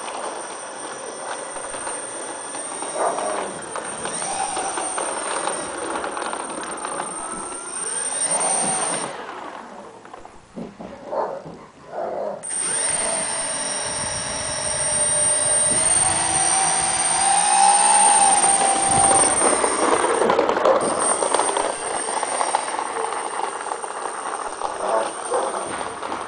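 Brushless electric motors of a four-propeller EPP foam RC C-130 Hercules model whining as the propellers spin, the pitch rising and falling with the throttle as it taxis. The sound drops away briefly about ten seconds in, then comes back stronger.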